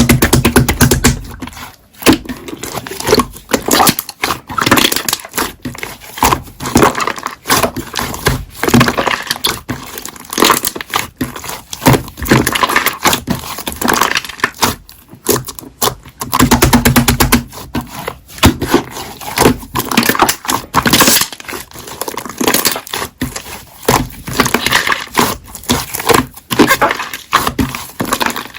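Hands squishing, folding and stretching slime, a dense run of sticky clicks, pops and crackles.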